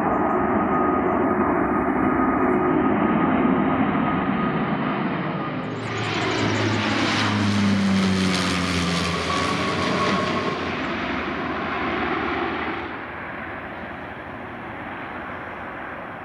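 Airbus A380 jet engines rumbling as it climbs away after take-off. About six seconds in, a Saab 340 twin turboprop passes low overhead on approach: its propeller drone grows loud and falls in pitch as it goes by, then settles to a fainter steady hum as it flies on toward the runway.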